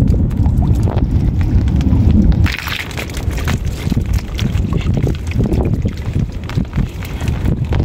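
Wind buffeting the microphone with a heavy low rumble, dropping off about two and a half seconds in. After that, water sloshing and splashing with scattered small knocks and clicks.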